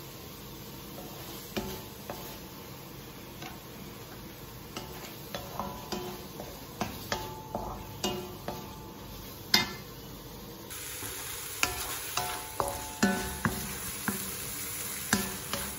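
Shrimp and squid frying in spice paste in a wok: a steady sizzle, with a wooden spatula scraping and tapping against the pan as it stirs. The strokes come more often in the second half, with one sharp tap about ten seconds in.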